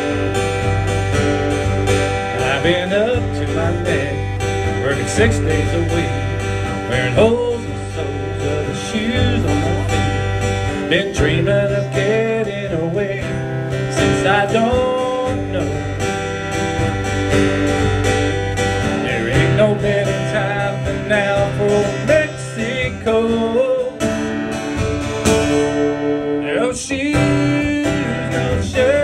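Live band music: guitar playing over held low bass notes that shift every few seconds, with no lyrics transcribed in this stretch.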